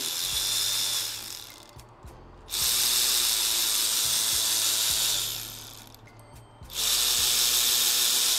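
Cordless electric ratchet running in three bursts of two to three seconds each, backing out the camshaft bearing cap bolts a little at a time.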